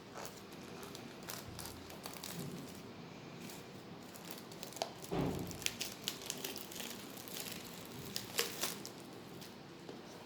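Crinkling and rustling of packaging being handled during an unboxing, with scattered light clicks and a dull thump about five seconds in.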